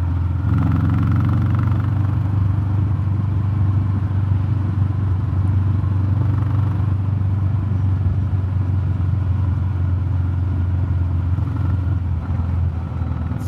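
Royal Enfield Classic 350's single-cylinder engine and exhaust pulling steadily under way, breathing through a DNA Stage 2 performance air filter, a deep low note that the rider finds a little more bassy than with the stock filter. The note swells slightly about half a second in and eases off near the end.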